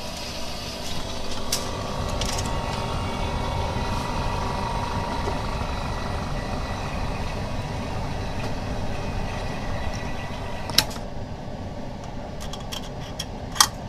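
BM02 edge laminator running a laminating cycle with a steady mechanical hiss and hum. About eleven seconds in, a sharp click comes and the hiss cuts out as the cycle is stopped partway, followed by a few small clicks.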